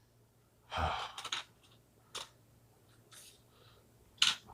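A person sighing once, a soft breathy exhale about a second in, followed by a faint click and another short breathy sound near the end.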